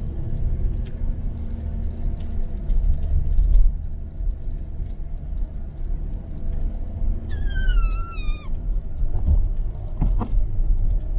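Steady low rumble of engine and tyre noise heard inside a moving car's cabin on snowy roads. About seven seconds in, a brief high, wavering squeal falls in pitch over about a second.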